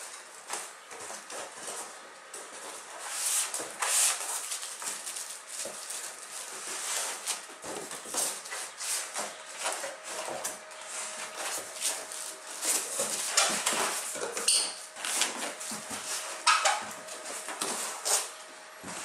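Cardboard carton being worked up and off a PC case: the carton scrapes and rustles against the white styrofoam end caps and the plastic wrap. It is a run of short rustles and scrapes, with a few brief squeaks of foam against the cardboard in the second half.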